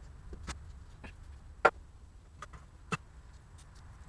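A few separate sharp metallic clicks and knocks of hand tools being picked up and a socket extension being set onto a bolt in an aluminium 16-valve cylinder head, the loudest about one and a half seconds in.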